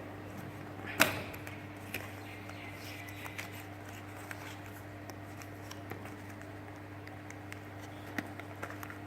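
Phone box and packaging being handled: one sharp knock about a second in, then scattered faint clicks, over a steady low electrical hum.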